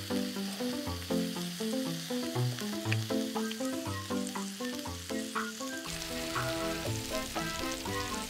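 Thin slices of raw beef sizzling on a hot pink salt block, with background music of quick, light melodic notes playing over it.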